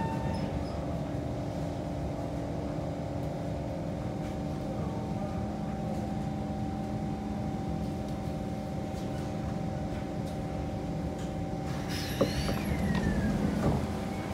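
Kawasaki C151 electric train standing still with a steady electrical hum, its traction motors just fallen silent after braking. About twelve seconds in comes a sharp click and a hiss, with a whistle falling in pitch, as the doors get ready to open.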